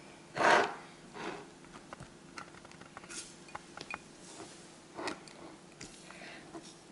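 Handling noises as soft boiled eggplants are pushed by hand into glass jars: one short, loud rustle-like noise about half a second in, then light clicks and taps of glass on the table and soft rubbing.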